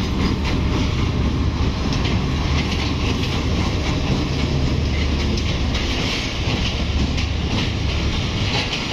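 GEU-40 diesel-electric locomotive pulling a passenger train past at slow speed: a low engine drone with the wheels clacking over rail joints as the coaches roll by, the drone easing off near the end.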